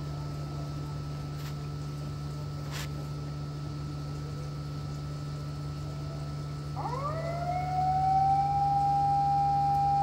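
Disaster-prevention wireless siren sounding a test over outdoor loudspeakers. About seven seconds in it winds up, rising in pitch, then holds one steady tone, with echoing copies of the rise trailing behind.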